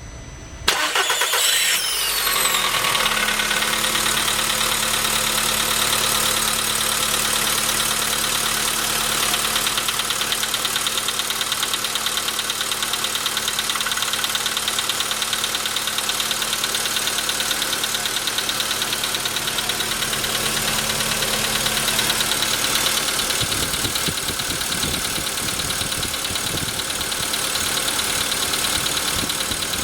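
Volkswagen Jetta 6 engine starting about a second in, then idling steadily with a knock from the engine. The knock, which the owner first took for the valves, was traced to the pistons, which were replaced under warranty.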